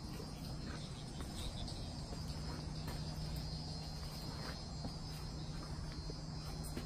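Crickets chirping steadily, with a low steady hum underneath.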